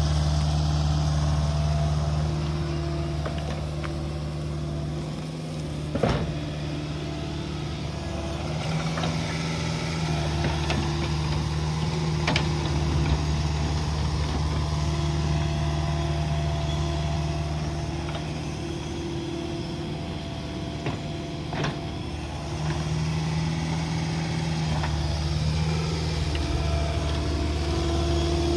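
Caterpillar mini excavator's diesel engine running steadily as it digs, its note swelling and easing as the hydraulics take load, with three sharp knocks spread through.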